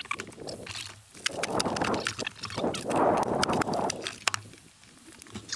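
Cooked yabby (freshwater crayfish) shells being cracked and pulled apart by hand on a wooden board: a run of sharp cracks and snaps, thickest from about one to four seconds in.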